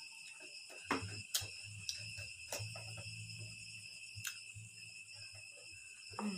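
Insects trill steadily in the background, several high tones held without a break. Over them come a few sharp mouth clicks and smacks of chewing food eaten by hand.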